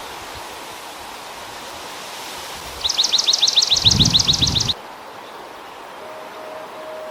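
Swamp sparrow singing one trill of evenly repeated down-slurred notes, about ten a second, lasting about two seconds, over a steady background hiss. A brief low rumble sounds under the second half of the trill.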